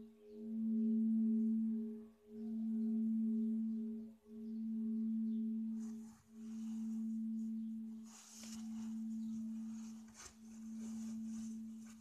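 A bell's lingering low hum, one steady tone that swells and fades about every two seconds as it slowly dies away. Faint rustling is heard in the second half.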